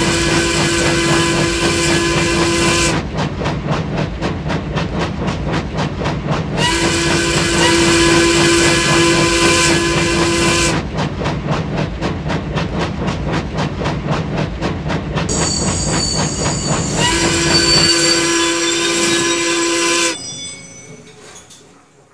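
Steam locomotive chuffing steadily, with three long whistle blasts. The chuffing and whistle die away near the end.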